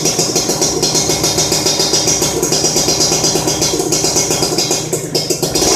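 Modenas Dinamik 120 motorcycle engine idling steadily through an RRM aftermarket racing muffler, with an even fast exhaust beat and some rattle.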